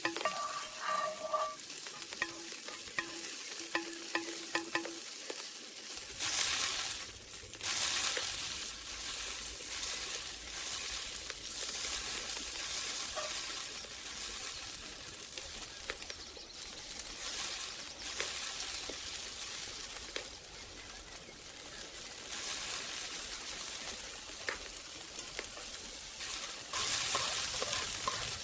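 Food sizzling as it fries in a pan, a steady hiss throughout.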